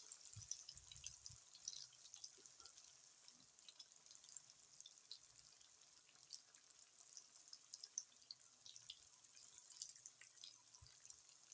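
Tufo snacks deep-frying in hot oil: a faint, steady sizzle with many small crackles and pops.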